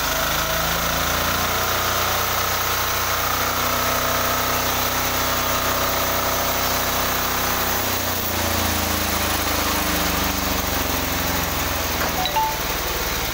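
An 18 hp diesel engine powering a sawmill, running steadily on test. Its note shifts about eight seconds in.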